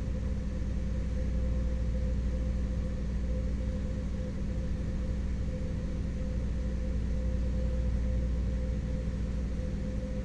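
Motor yacht's inboard diesel engine running steadily under way at low cruising revs, a deep even hum heard from inside the wheelhouse.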